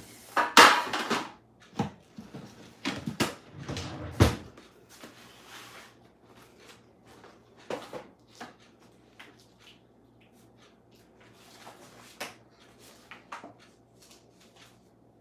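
Knocks and clatter of things being handled in a kitchen, with a few loud thumps in the first four seconds and then only scattered light clicks.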